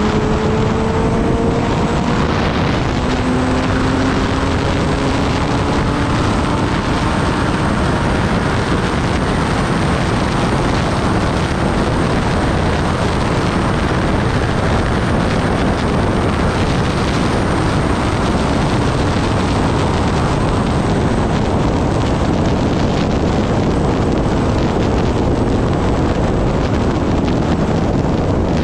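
Steady wind noise on the microphone of a Kawasaki ZX-10R inline-four sportbike at high speed, with the engine note rising under acceleration in the first few seconds before the wind rush covers it.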